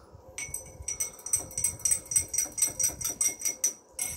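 Metal spoon clinking against the inside of a drinking glass while stirring water: quick, even clinks, about five a second, each leaving a short glassy ring, stopping shortly before the end.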